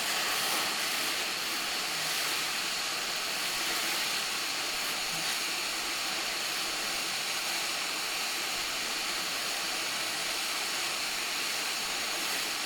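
Hot-air rework station blowing a steady hiss onto a circuit board, heating a BGA chip to reflow the solder beneath it.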